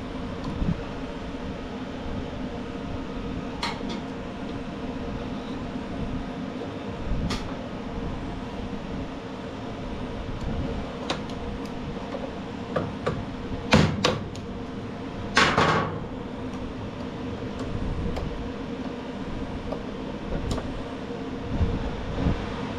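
Small metal drive-gear parts (spacers, keepers, key) clicking and clanking as they are worked off the axle and set down, with a few sharp taps and a longer metallic rattle about halfway through. A steady hum runs underneath.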